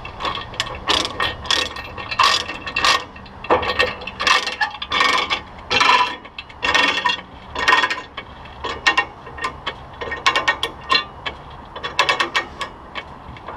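Ratchet load binder being cranked to tighten a tie-down chain, its pawl clicking in repeated runs as the handle is swung back and forth.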